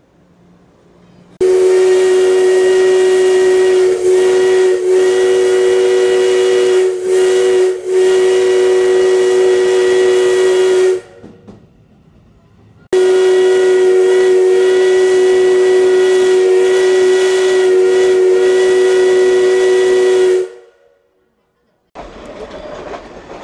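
Steam whistle of DT668, a Kawasaki-built D51-type steam locomotive, blown in two long steady blasts of about nine and seven seconds, the first faltering briefly a few times.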